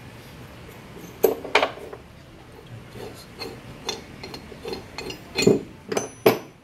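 Metal clicks, clinks and light knocks as the adjuster and its lock ring are worked off a recirculating-ball steering gearbox housing by hand. The knocks come scattered, the loudest near the end, one ringing briefly.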